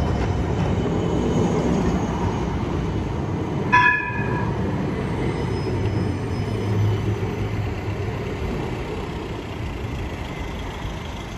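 City tram running past close by with a steady low rumble of wheels and motor, and one short bell-like warning signal from the tram about four seconds in.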